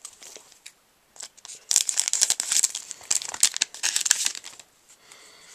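A trading-card booster pack's wrapper being torn open by hand: a few small crinkles, then a dense burst of crackling and tearing starting about a second and a half in and lasting about three seconds.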